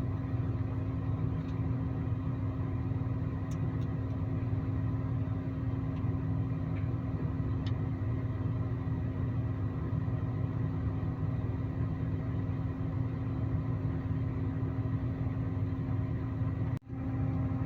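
Forage harvester's engine running steadily, heard from inside its cab: an even, unchanging hum. It drops out for an instant near the end.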